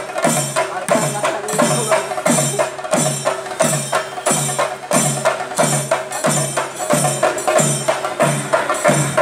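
Traditional drum ensemble playing a steady, even beat of a little over two strokes a second, each a deep drum stroke with sharp clicks and a high metallic jingle, over a continuous held tone.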